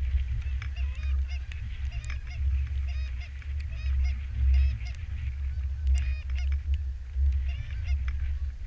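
Canada geese honking, many short overlapping calls from a flock, over a steady low rumble.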